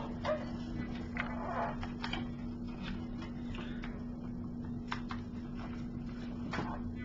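Scattered light clicks and rustles of small objects being handled, over a steady electrical hum.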